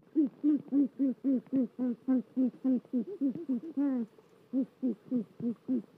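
An animal calling in a rapid series of short hooting notes, about four a second, each note rising and falling in pitch, with a brief pause a little past two-thirds of the way through.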